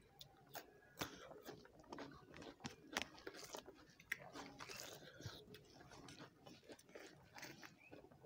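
Faint eating sounds: chewing and crisp bites of raw cucumber, with fingers mixing rice on steel plates. Scattered soft crunches and clicks, the sharpest about one second and three seconds in.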